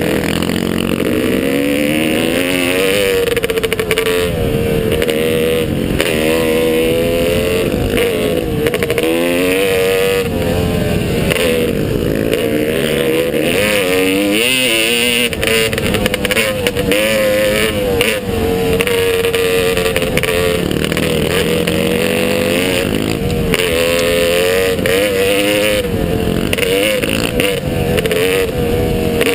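Motocross bike engine being ridden, revving up and down over and over, its pitch rising and falling every second or two.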